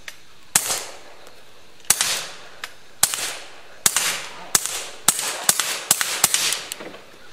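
Suppressed Walther P22 .22 LR pistol firing about nine shots, each a sharp crack with a short trailing tail. The shots come faster toward the end.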